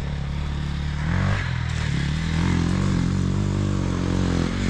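Enduro motorcycle engine running, revs rising about a second in and then holding fairly steady under throttle.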